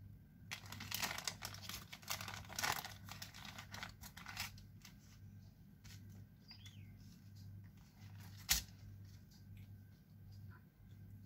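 Baking paper crinkling and rustling as it is handled under a sponge cake sheet, in dense crackles during the first four seconds or so, then softer scattered rustles. A single sharp click about eight and a half seconds in.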